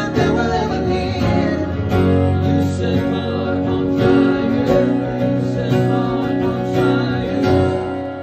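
Acoustic-electric guitar strummed live through a PA, ringing chords in a steady rhythm of about one stroke a second, easing off slightly near the end.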